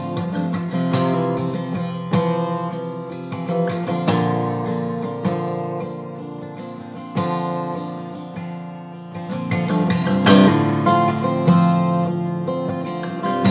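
Solo acoustic guitar: chords strummed and left to ring, a fresh strum every second or two. This is a recording played back in a phone recording app with reverb and compression applied.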